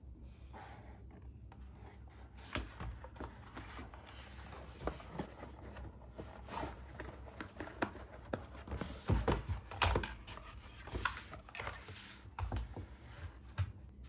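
Cardboard packaging being handled and opened: irregular scrapes, rustles and clicks of cardboard and plastic, with a few heavier thumps about two-thirds of the way through.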